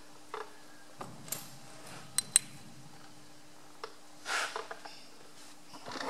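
Faint handling noises: a few light clicks, two sharp ones about two seconds in, and a short scraping rustle around four seconds in, over a faint steady hum.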